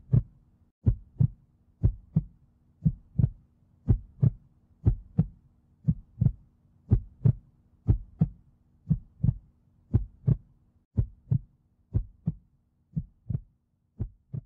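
A heartbeat, a steady double beat about once a second, over a faint low hum; the beats grow fainter near the end.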